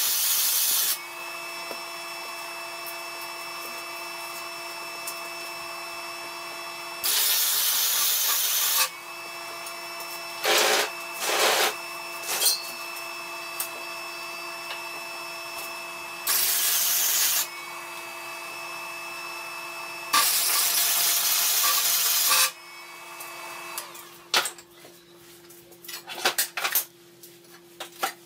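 Wire-feed (MIG) welding arc crackling and hissing in five short bursts of one to two seconds each, tack-welding a steel tube frame, with a steady hum between the bursts. Near the end, scattered metal clinks and knocks as the steel frame is handled.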